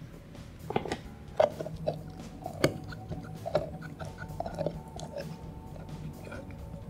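A dog gnawing a hard cheese dog chew, partly held in a rubber chew toy: irregular sharp clicks and crunches of its teeth on the chew, one or two a second.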